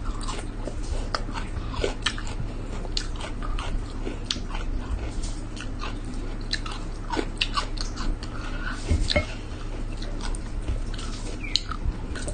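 Close-miked chewing of rice and sambal chicken eaten by hand, with many short, irregular mouth clicks and smacks over a steady low hum.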